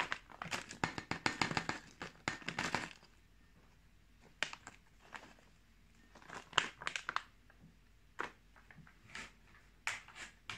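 Plastic snack bag crinkling as dried spicy tofu flakes are shaken out onto a plate, a dense crackle for about three seconds, followed by a few scattered light clicks and rustles.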